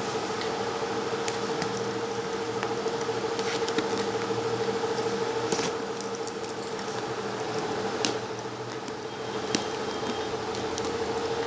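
Scattered light clicks and taps of a smartphone and its packaging being handled, over a steady hum.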